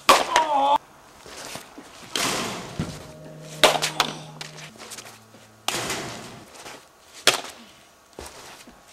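Sharp hollow knocks of a plastic Blitzball being batted and pitched around: a loud one right at the start, followed by a brief shout, and more about three and a half, five and a half and seven seconds in.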